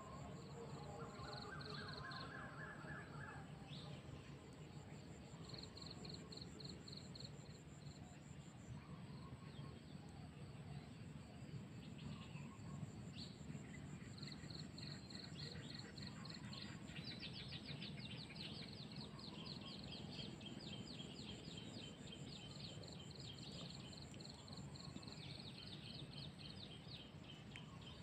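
Faint outdoor ambience: birds chirping in quick repeated trills, busier in the second half, over a steady high-pitched insect whine.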